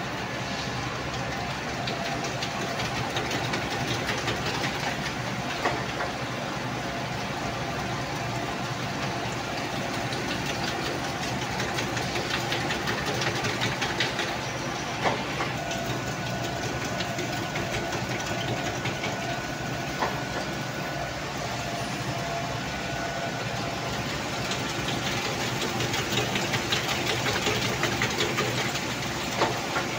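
Gear grinding machine running, its wheel grinding the teeth of a steel gear: a steady machine noise with a fine crackling hiss and a few sharp clicks.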